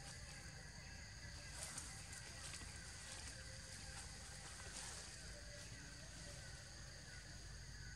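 Faint forest ambience: a steady background with thin, high, unbroken tones like a distant insect chorus, and no distinct nearby event.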